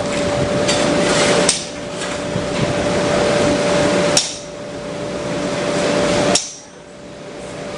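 A blacksmith's hammer striking hot steel on an anvil in a few spaced, sharp blows, the loudest about four and six seconds in. A steady rushing noise with a low hum runs beneath them.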